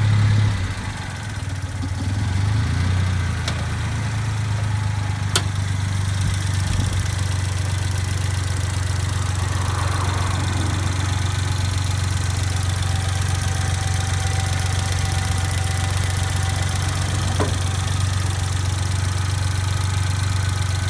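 Suzuki Jimny JA11's small three-cylinder engine idling steadily, with a dip in level just after the start before it settles. A few single sharp clicks stand out over the idle, the clearest about five seconds in.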